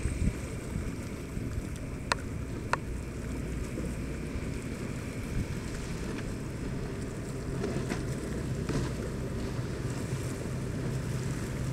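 A passing motorboat's engines running at speed, a low steady drone with its hull hissing through the water, mixed with wind buffeting the microphone. Two sharp clicks come a little over two seconds in.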